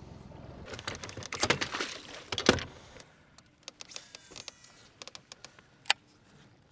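A boat motor's low hum cuts off, then a burst of rattling and knocking from gear on an aluminum bass boat deck. This is followed by scattered light clicks, with one sharp click near the end, as a fishing rod and reel are worked from the bow.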